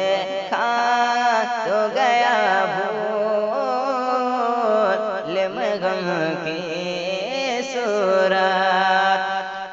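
A man's voice singing an Urdu devotional kalam in long, ornamented notes, the pitch bending up and down through each phrase, with no instruments or percussion.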